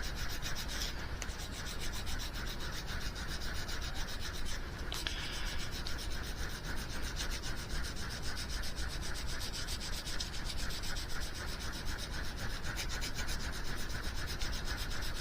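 Sandpaper rubbed steadily and rapidly over a fishing lure's body, with no pauses, sanding the black paint off the high spots while it stays in the dents and low spots.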